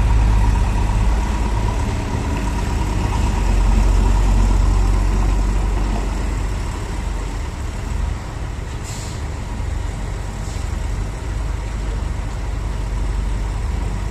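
Heavy diesel engine of a concrete mixer truck running with a steady low rumble. Two short hisses of air sound about nine seconds in and again a second and a half later.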